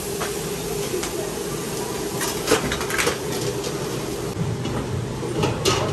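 Commercial kitchen at a chargrill: the steady hum of the extraction hood, with a few sharp metal clicks and clinks of tongs against the grill grate, a cluster about two to three seconds in and two more near the end.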